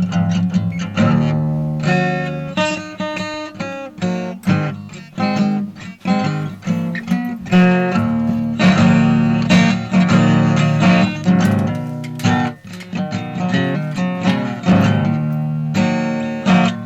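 Background music: plucked acoustic guitar, strummed and picked.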